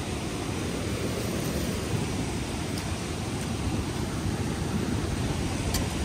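Steady rush of water pouring over a dam spillway waterfall, an even noise with no let-up.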